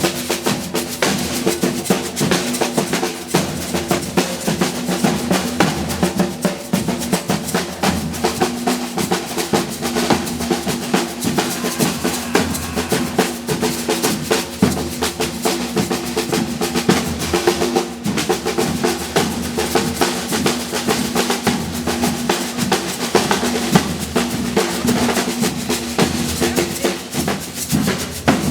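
Brazilian percussion ensemble drumming live: a dense, unbroken drum rhythm.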